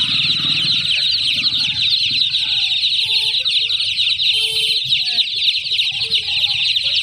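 A large group of chicks peeping nonstop, a dense chorus of rapid high-pitched cheeps, with a few short, lower calls among them.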